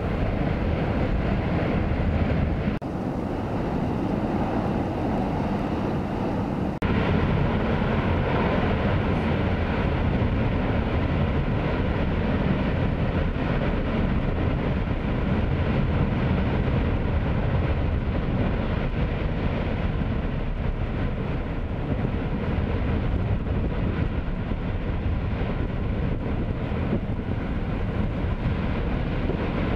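Mount Bromo's crater vent giving off a loud, steady rushing noise as it pours out a thick plume. The sound dips briefly about three seconds in and again about seven seconds in.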